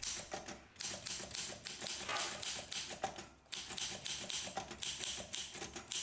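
Mechanical typewriter keys clattering in rapid, uneven runs, with a short pause a little past the middle.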